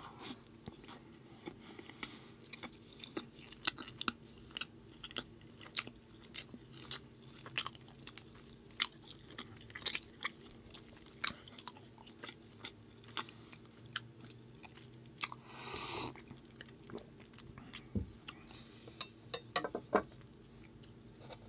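Close-miked chewing with many irregular wet mouth clicks and smacks. There is a faint steady hum underneath, and a brief breathy rush about three-quarters of the way through.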